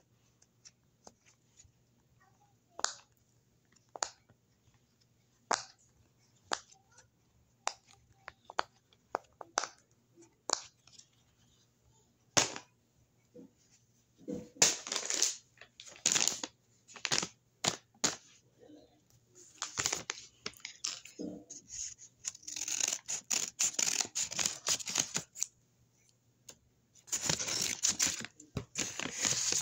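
Handmade paper blind bags being handled: light taps and clicks at first, then from about halfway on, bursts of paper crinkling and rustling.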